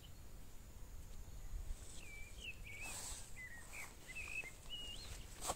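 A small songbird singing a run of short, quick warbling phrases, starting about two seconds in, over a low outdoor rumble. A few sharp clicks fall among the phrases, the loudest just before the end.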